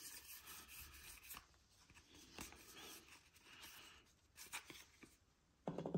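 Faint rubbing and sliding of baseball trading cards being shuffled through by hand, with a few light ticks, and a short low sound at the very end.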